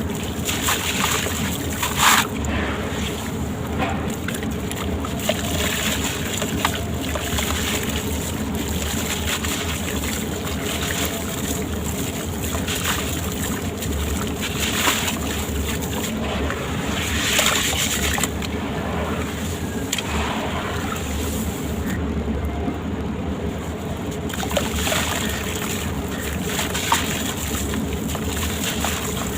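Sand-cement shapes crumbling with gritty crunches in water, which sloshes and splashes, over a steady low hum. The crunches come irregularly, with stronger ones about two seconds in, around fifteen and seventeen seconds, and near twenty-five seconds.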